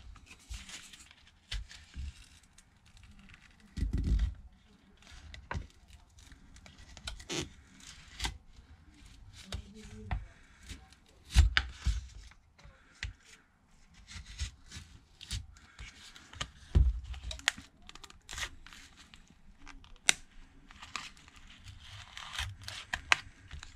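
Adhesive under an LG Stylo 6's back panel peeling and tearing as thin plastic prying cards are worked around it, with scattered sharp clicks and knocks from the tools and phone.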